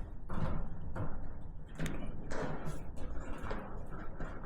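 A piece of hose being pushed and worked into a wire hole in a steel shipping container wall: a series of short scraping rubs and light knocks, with one sharp click about two seconds in.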